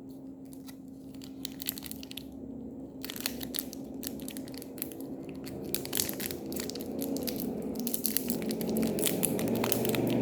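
Chocolate-bar wrapper being torn open and crinkled: a few scattered crackles at first, then from about three seconds in a dense run of crackling and tearing that grows louder toward the end.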